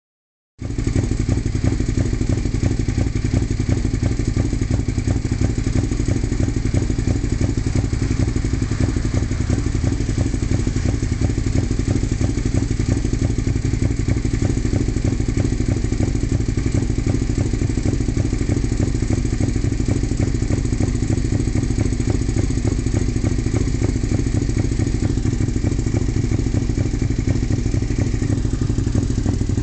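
2002 Suzuki SV650S's 90-degree V-twin idling through a full M4 exhaust, running rough and sputtering off the beat. The cause of the uneven idle has not been found.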